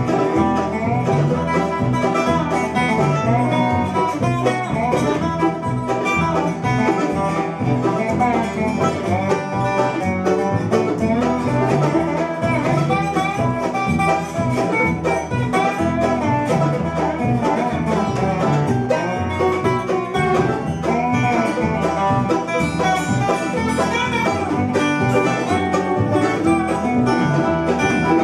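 Bluegrass band playing together: mandolin, resonator guitar, upright bass, banjo and acoustic guitar.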